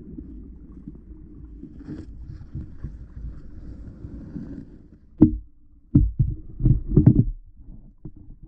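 Muffled underwater rumble of stream water against a GoPro's waterproof housing, broken about five seconds in by several loud, dull knocks on the housing as a freshwater eel bumps and mouths the camera.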